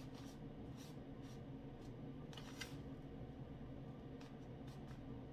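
Homemade breadcrumbs rustling and scraping in a plastic tub as an onion ring is pressed and turned in them, in short scratchy strokes, the strongest about halfway through. A steady low hum from the preheating air fryer runs underneath.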